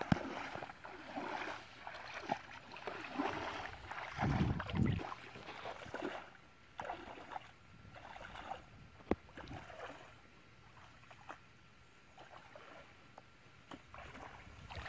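Water splashing and sloshing as a person wades through shallow muddy water, heavier in the first half and fainter later, with a sharp click about nine seconds in.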